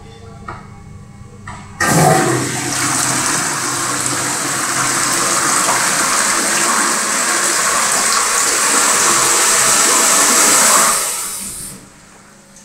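Toilet flushed by a chrome wall-mounted flush valve (flushometer). After a light click or two as the valve is worked, water rushes into the bowl suddenly about two seconds in. The rush runs strongly for about nine seconds, then dies away near the end.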